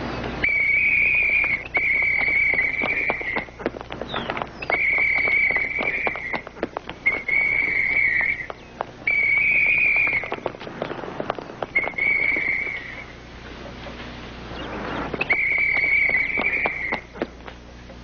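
A whistle blown in seven long blasts of one to two seconds each, all on the same high tone, with scattered knocks and scuffs between them.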